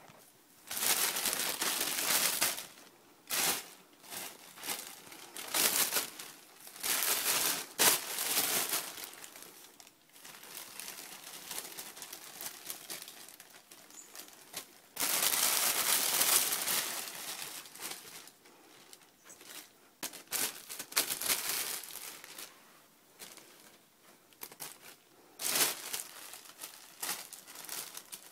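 Plastic bags crinkling and rustling in irregular loud bursts as ferrets burrow into and wrestle with them.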